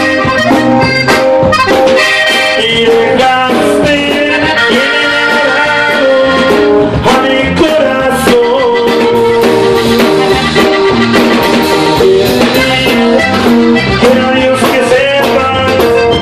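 Live norteño band music: a Gabbanelli button accordion plays quick melodic runs over strummed guitar and a steady drum-kit beat.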